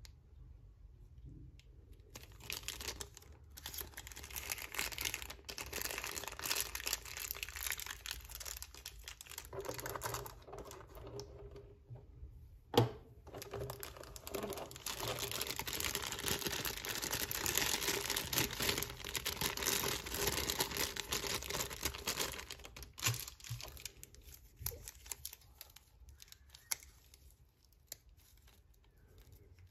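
Clear plastic blister tray and plastic wrapping crinkling and crackling as figure parts are handled and pulled out, with one sharp plastic snap about thirteen seconds in. The crinkling goes quieter for the last several seconds.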